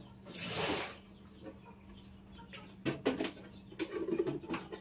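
Kitchen handling noises: a short rush of noise under a second long near the start, then a few light knocks, over a steady low hum, with faint bird chirps in the background.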